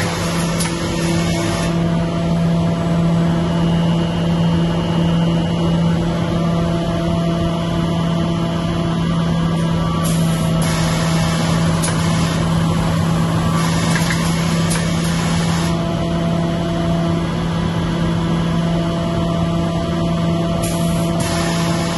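Foggiato Montex automatic industrial sewing unit running, with a steady motor hum throughout. Several bursts of higher-pitched machine noise, each lasting one to two seconds, come and go over it.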